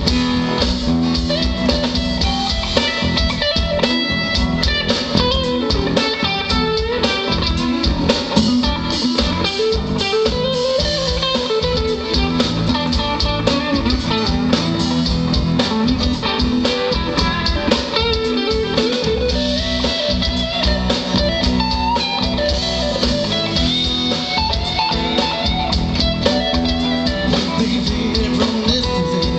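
Live band playing an instrumental passage: acoustic and electric guitars over a drum kit, with a lead line that bends up and down in pitch.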